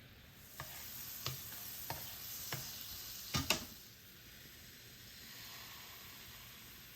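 Crepe batter sizzling in a hot buttered frying pan, with light knocks about every half second and a louder double knock about three and a half seconds in. The sizzle then settles to a steady, quieter hiss.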